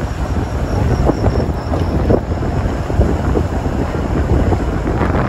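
A moving non-AC sleeper bus heard from an open window: steady low rumble of engine and road noise with wind buffeting the microphone.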